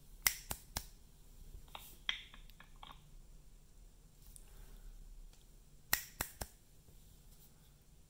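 Sharp fingertip taps and clicks on a smartwatch: three quick ones in a row about a quarter second apart, a scatter of lighter clicks with a brief high chirp around two seconds in, then another quick set of three near six seconds.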